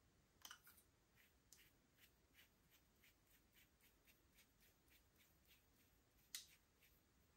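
Faint wet clicks and pops from slime being worked by hand, coming about three a second, with two louder pops about half a second in and near the end.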